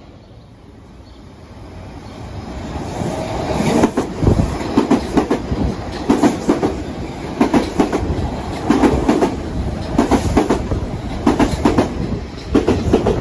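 Metro-North M8 electric multiple unit passing close at speed. Its rumble builds over the first few seconds, then the wheels click over the rail joints in regular paired beats, about one pair every second or so.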